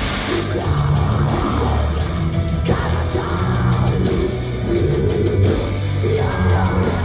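Power metal band playing live: distorted electric guitars, bass and drums, with a voice singing over them.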